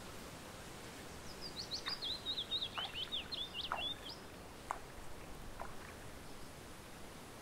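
A songbird sings one quick phrase of rapid, high notes that drift slightly downward over about three seconds, over a steady outdoor hiss. A few faint clicks follow.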